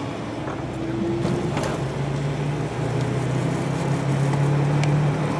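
Car engine running and road noise heard from inside the cabin as the car drives along, a steady low hum that grows gradually louder.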